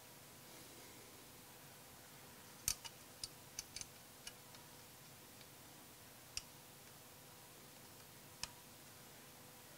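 Light metal clicks from small button head bolts and a radiator brace plate being handled and threaded by hand. About eight faint, sharp clicks, most of them bunched a few seconds in, with single ones later, against near silence.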